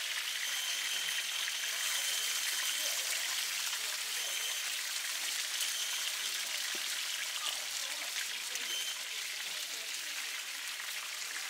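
Oil sizzling and crackling steadily under a large pan of pan-fried dumplings.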